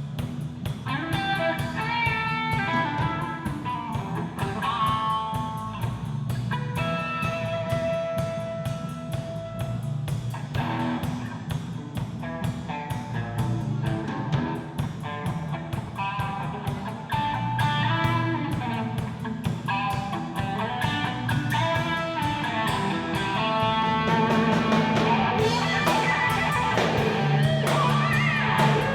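Live rock band playing an instrumental passage: electric guitar carrying the melody over bass guitar and drum kit, growing louder near the end.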